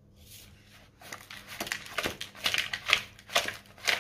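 Hands mixing raw chicken pieces with turmeric and rock salt: repeated wet squishing strokes, about two a second, starting about a second in.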